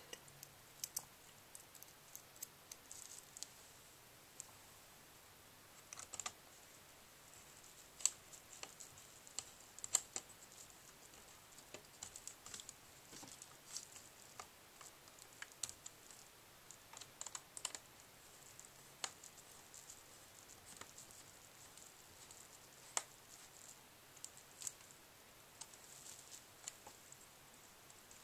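Faint, irregular small clicks and taps of hands and a small screwdriver working on a laptop's replacement screen: screws being driven and plastic and metal parts being handled.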